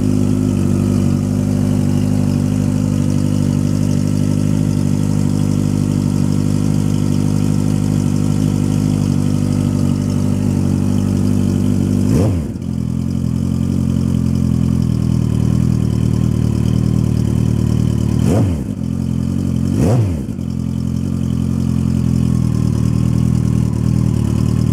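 Kawasaki ZX14R inline-four idling through Extremeblaster XB08 dual slip-on mufflers after a cold start. The throttle is blipped three times, once about halfway through and twice more near the end, each rev rising quickly and dropping straight back to idle.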